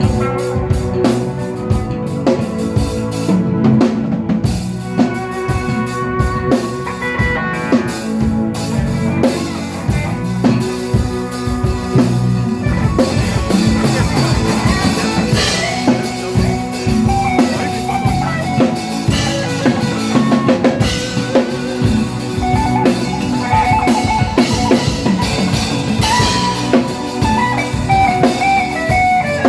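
A band playing music led by a drum kit, with kick drum, snare and rimshot hits over held pitched notes from other instruments.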